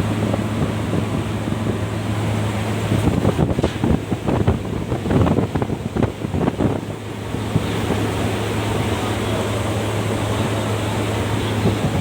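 Paddy grain dryer's blower running: a steady rush of air over a constant low hum. For a few seconds in the middle, irregular rattling and knocking sounds over it.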